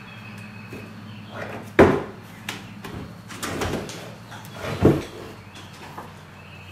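A wooden frame knocked and scraped on a workbench top as it is handled and stood on end. Two loud thumps about three seconds apart, with softer scraping and clatter between them.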